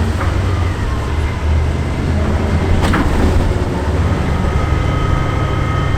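Diesel engine of an M3 amphibious bridging rig running with a steady low rumble, with a single sharp knock about three seconds in.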